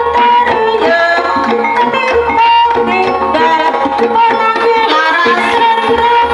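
Live folk music with hand drums and melodic lines, played very loud through a PA sound system, so loud that it overwhelms the recorder.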